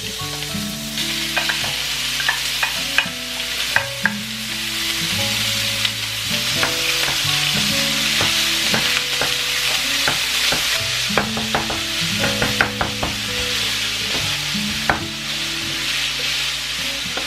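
Minced meat sizzling in a frying pan while a wooden spatula stirs and breaks it up, with irregular sharp taps and scrapes of the spatula against the pan.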